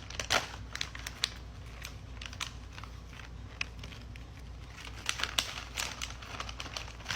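Snack packet of freeze-dried strawberries being handled and opened: irregular crinkling and crackling of the packaging, busiest in the first second and again around five to six seconds in.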